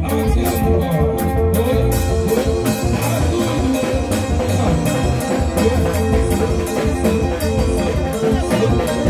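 Live band music: a drum kit played with sticks, with cymbals, keeps a fast, steady beat under held keyboard or guitar notes, and a man sings into a microphone.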